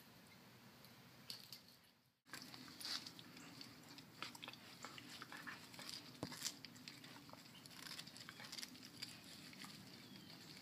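A border collie–Labrador mix dog chewing and gnawing uprooted plant roots and stems: irregular small crunches and clicks that begin about two seconds in.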